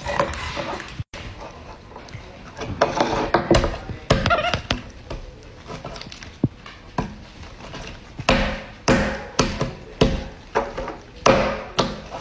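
Sharp knocks and taps as a capuchin monkey handles plastic slime tubs on a wooden tabletop, coming about twice a second in the second half.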